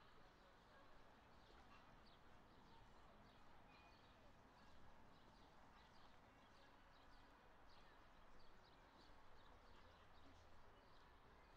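Quiet outdoor background with faint, scattered bird chirps.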